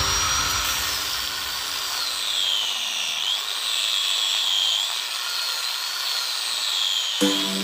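Handheld electric angle grinder grinding into a carved wooden fishing-rod handle: a high whine over a rough grinding hiss that sags in pitch as the disc is pressed into the wood and climbs again as the pressure eases, several times.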